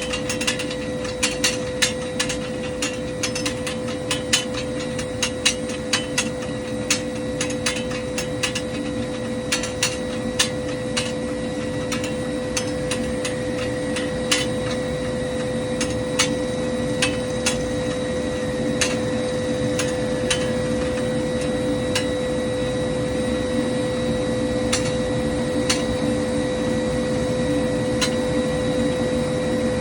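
Turbofan engine spooling down: a steady hum and whine under irregular sharp clicks and clanks that come thick at first and thin out over the second half, the typical clatter of the loosely held fan blades as the fan slows.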